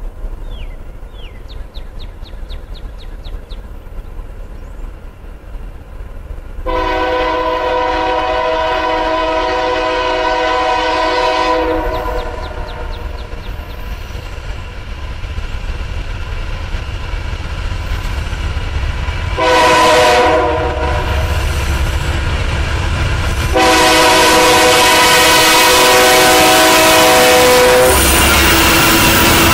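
Union Pacific freight locomotive's multi-chime air horn sounding the grade-crossing signal as the train approaches: one long blast, a short one, and another long one, each getting louder. Near the end the locomotive passes close by with a loud rumble of engine and wheels.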